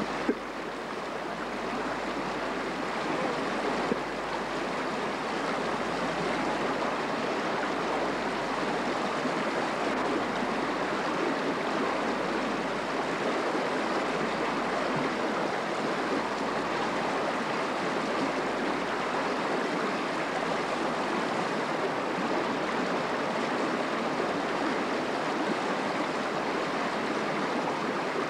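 Mountain river running steadily over rocks, with a brief knock just after the start and another about four seconds in.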